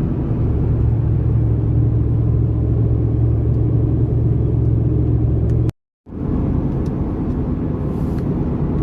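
Steady low rumble of a car's engine and tyre road noise, heard from inside the moving vehicle. It drops to complete silence for a moment about six seconds in, then resumes.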